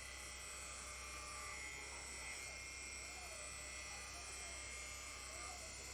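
Faint, steady electric whine and hum of a running machine tool: several high steady tones over a low hum, with no strikes or changes.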